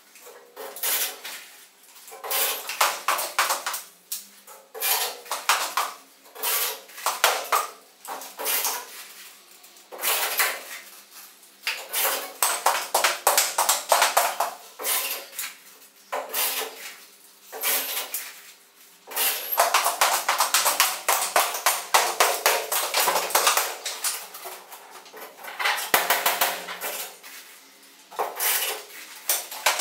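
A cordless drill driving screws through the gypsum ceiling board into the metal frame, in about fifteen short bursts of rattling clatter with brief pauses between.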